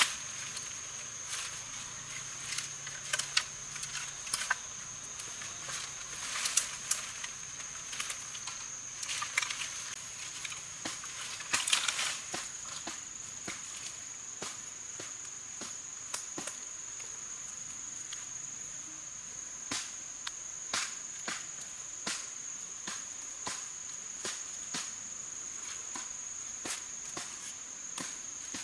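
A steady high-pitched insect drone, like crickets or cicadas, with scattered short clicks and crackles throughout and a denser burst of crackling about twelve seconds in.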